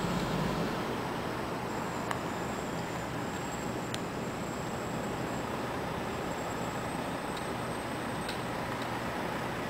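Road traffic noise: a steady, even wash of vehicle sound with no siren, and a few faint clicks.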